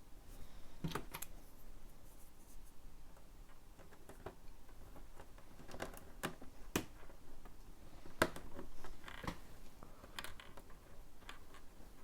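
LEGO plastic bricks and a thin light-kit wire being handled and pressed into place: scattered light clicks and taps, with faint scratching between them.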